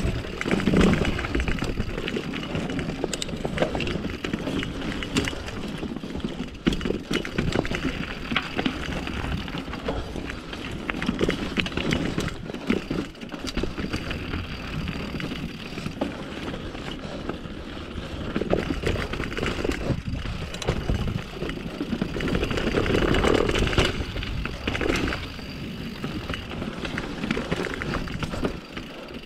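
Mountain bike riding over dirt and rocky singletrack: tyres rolling over dirt, rock and roots, with steady rumble and frequent knocks and rattles from the bike as it hits bumps.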